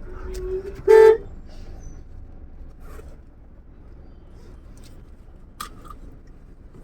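A car horn gives one short toot about a second in, over the steady low rumble of a vehicle engine and traffic.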